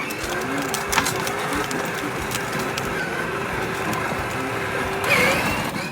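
Steady whirring drive sound of a toy car moving along, with no break until it fades out near the end.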